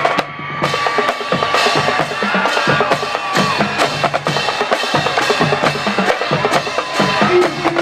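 Music led by drums and percussion, with sharp strokes on a steady beat and a held tone over them in the first few seconds.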